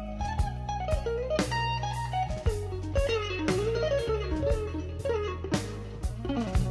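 Background music: an electric guitar lead with bending notes over a bass line and a steady beat.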